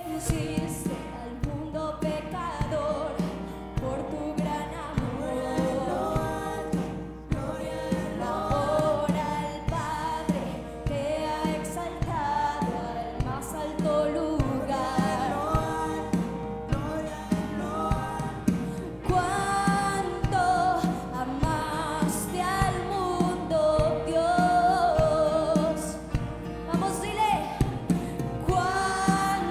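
A woman singing a Spanish-language worship song, backed by a band with a steady drum beat.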